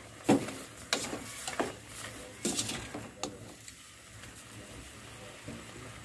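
A spoon knocking and scraping against an aluminium cooking pot as squid is stirred, several clinks in the first three seconds or so, then quieter.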